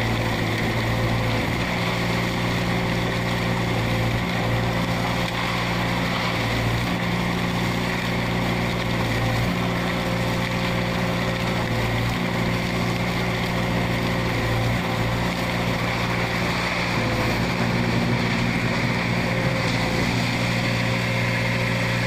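Diesel concrete mixer pump running steadily while pumping concrete through its delivery hose, with a regular change in its engine sound every two to three seconds.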